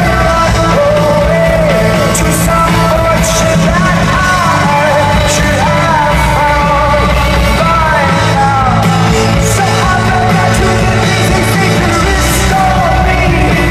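Rock band playing live, with a sung lead vocal over bass and drums, loud and unbroken.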